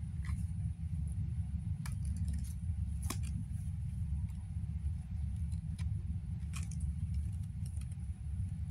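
Kittens' claws clicking and scraping on a woven bamboo basket as they wrestle: scattered light clicks, thickest about two to three seconds in and again near the end, over a steady low rumble.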